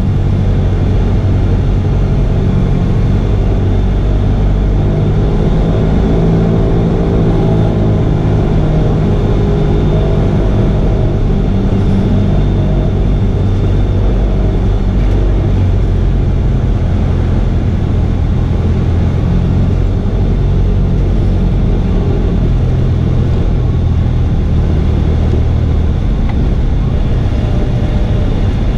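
Cessna 172R's four-cylinder Lycoming engine and propeller running steadily on final approach, heard from the cockpit. The engine note shifts a few times, then drops near the end as power comes back for the touchdown.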